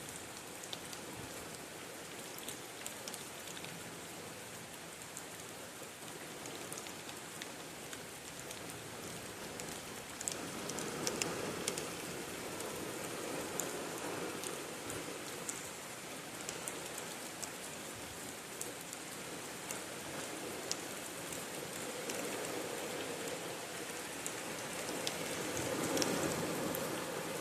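Steady rain with scattered drops pattering on a surface, swelling in intensity a few times.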